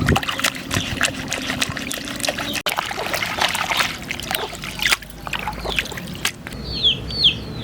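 Water trickling and splashing while leaves are washed by hand, with many small clicks and rustles of handling. Two short high chirps from a bird near the end.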